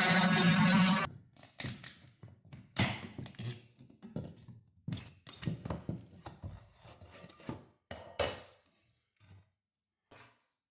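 A power tool runs with a steady buzzing pitch and cuts off about a second in. A string of irregular wooden knocks and thunks follows, with a last few faint taps near the end.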